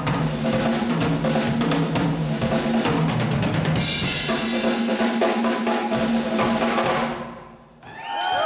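Acoustic drum kit played in a fast solo: rapid strikes on snare, toms and bass drum, with a cymbal crash about four seconds in. The drumming dies away about seven seconds in, and an audience starts cheering near the end.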